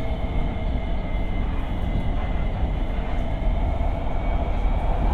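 Shanghai Metro Line 2 train running between stations, heard from inside the carriage: a steady rumble of wheels on rail with faint, constant higher tones over it.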